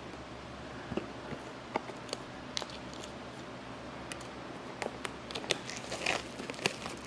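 Plastic packaging crinkling with scattered small clicks and taps as an engine timing set is unwrapped and handled, busier near the end.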